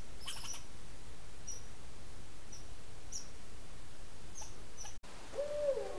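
Red squirrel calling: short, high-pitched squeaks and chirps, a quick cluster near the start and then single ones about every second. Near the end a barred owl's hooting call begins, low and wavering up and down.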